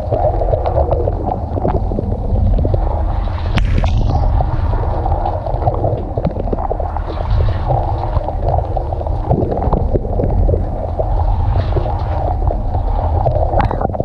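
Dishwasher wash cycle heard from inside the tub: water jets from the spray arm splash over the dishes and against the camera housing in a steady, muffled wash dotted with small droplet hits, with one sharper splash about four seconds in.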